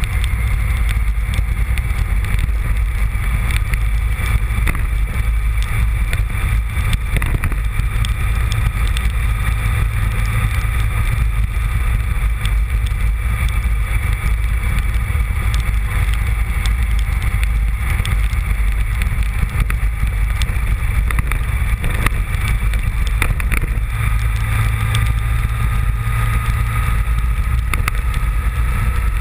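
Honda VFR750's V4 engine running steadily as the motorcycle rides at speed, with wind buffeting the microphone. Its note climbs a little near the end.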